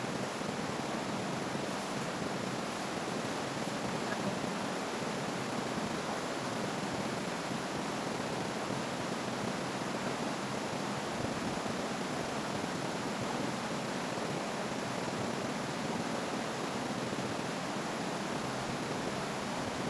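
Steady, even rushing noise outdoors, with no distinct events: the sound of strong wind or moving water.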